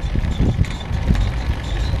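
Wind buffeting the microphone of a moving bike, an uneven low rumble with road and rolling noise under it.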